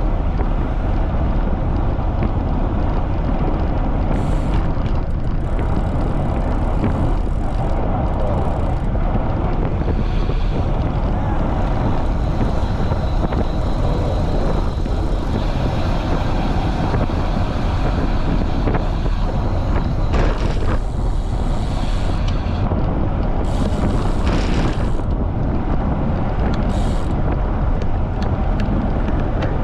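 Strong wind buffeting the microphone of a camera on a moving bicycle: a loud, steady rush of noise, deepest at the bottom, with a few short brighter hissy swells.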